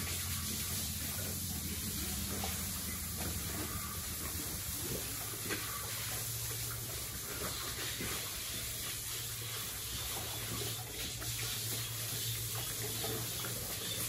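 Water running and splashing onto a wet concrete pig-pen floor, with a steady low hum underneath.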